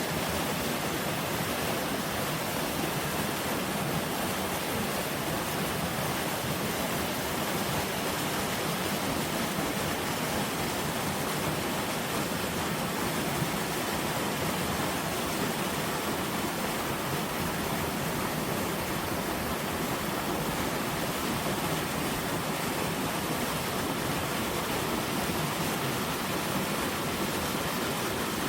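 Mountain valley stream running steadily, fed by melting spring snow.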